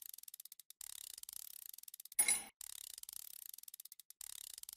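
Repeated scraping strokes on metal, each about a second long with a fine clicking texture. A single sharp metallic clink rings out about two seconds in.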